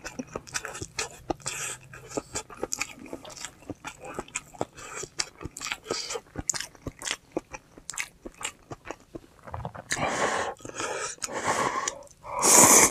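Close-up chewing: quick crisp crunches of chonggak (ponytail radish) kimchi being bitten and chewed, several a second. In the last three seconds come a few louder, longer noisy eating sounds.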